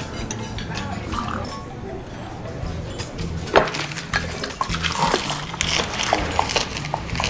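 Messy wet eating sounds: a man slurping, squelching baked beans and fish fingers with his bare hand and sucking his fingers. A sharp squelch comes about three and a half seconds in, over soft background music.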